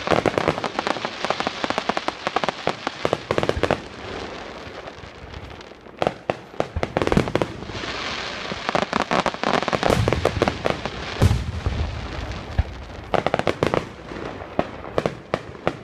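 Fireworks display: aerial shells bursting overhead, with long runs of rapid crackling and several heavier bangs, the loudest about eleven seconds in.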